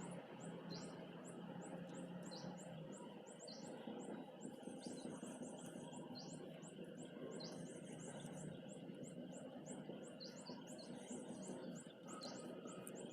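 Small birds chirping faintly: many short, high chirps repeating one after another, with a few quick trilled runs.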